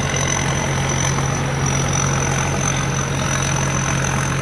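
Combine harvester engine running steadily, with a thin high whine held above the engine's hum.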